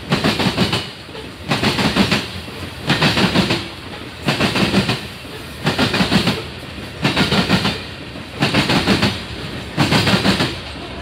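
Freight train of coal hopper cars rolling past, the wheels clattering in a regular burst about every second and a half as each car's trucks go by, with a steady rolling rumble in between.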